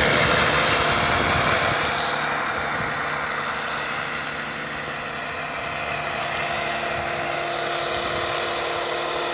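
Scale radio-controlled helicopter lifting off and hovering low: a steady rotor whir with a motor whine, loudest at liftoff and easing a little a few seconds in.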